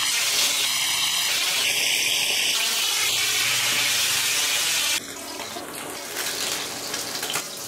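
Mackerel steaks sizzling in hot cooking oil in a frying pan, a steady hiss. About five seconds in the sizzle drops suddenly to a quieter, thinner hiss.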